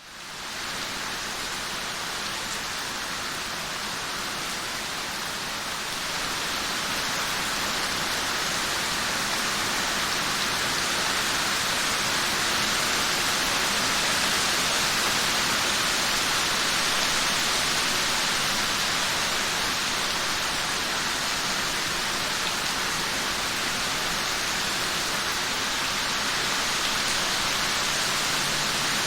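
Heavy rain falling steadily on a street and trees, a dense even hiss that fades in over the first second.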